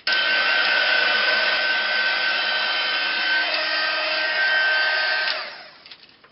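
Handheld craft heat gun blowing hot air: a steady fan rush with a high whine. It is switched on right at the start and switched off about five seconds in, winding down over about half a second.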